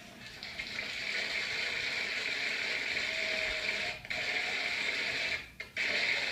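Studio audience applauding, heard through a television's speaker: steady clapping, with two brief dips about four and five and a half seconds in.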